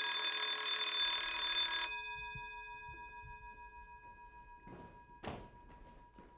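An electric bell ringing loudly and steadily, cut off about two seconds in, its tone ringing on and fading away. Then a couple of soft rustling knocks.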